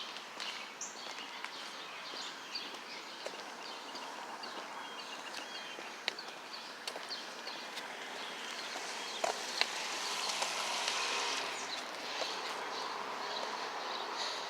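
Small birds chirping again and again over a steady outdoor hiss, with a few sharp clicks; the hiss swells and fades about ten seconds in.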